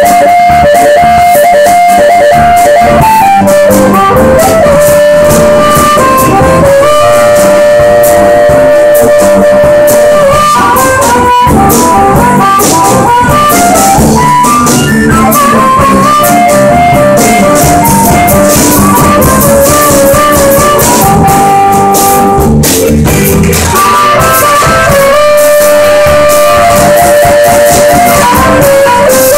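Live band playing loudly: an amplified harmonica plays long held and bending notes over electric guitar and drums.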